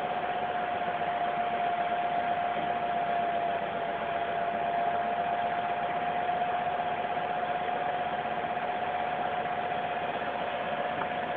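Heavy truck's engine running slowly and steadily as the truck creeps forward, with a steady high whine and a hiss.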